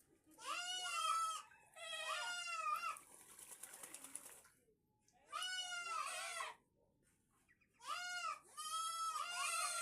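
A farm animal calling repeatedly: five drawn-out, wavering calls of about a second each, two at the start, then one about five seconds in and two near the end. Between them, about three seconds in, comes a stretch of rustling or splashing noise.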